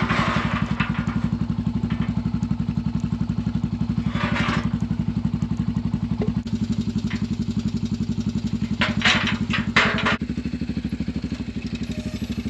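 Utility vehicle engine idling with a steady, fast low pulse, while a steel pipe gate clanks: one clatter about four seconds in and a louder cluster of clanks near the end.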